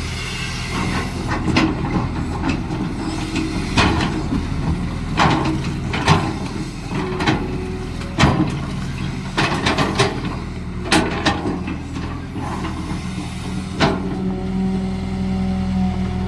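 Caterpillar excavator's diesel engine running while it digs, with about ten sharp knocks and clanks of the working machine. A steadier, higher tone comes in near the end.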